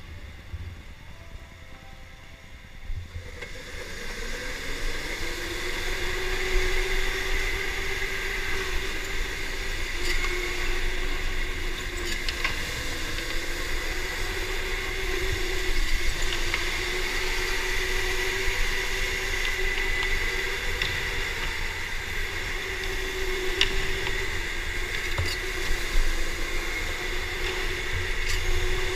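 Electric go-kart motor whining while the kart drives, with a low rumble underneath. The whine rises in pitch about three seconds in as the kart speeds up, then holds fairly steady.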